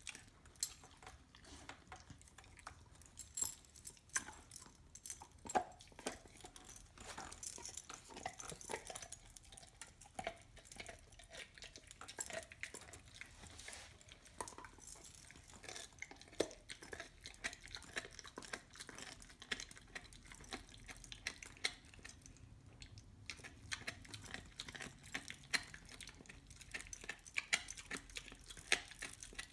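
Dog gnawing a raw bone: irregular clicks, scrapes and crunches of teeth on bone, with a short lull about two-thirds of the way through.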